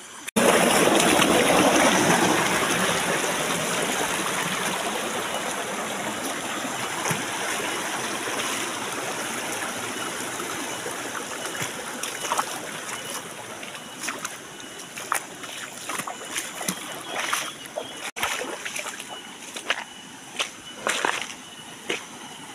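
Shallow forest stream rushing over rocks, loudest at first and slowly easing off. Near the end the rushing is quieter, with scattered clicks of footsteps on stones.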